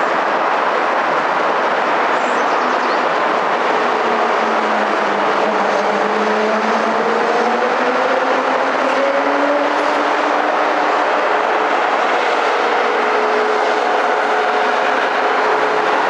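Steady, loud wash of road traffic mixed with an Amtrak Acela Express trainset running past. In the middle a few engine tones glide slowly upward in pitch.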